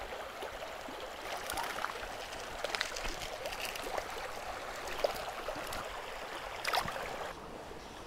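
Small stony brook running shallow over gravel, a steady rushing trickle of water with a few brief sharp ticks over it; it gets quieter about seven seconds in.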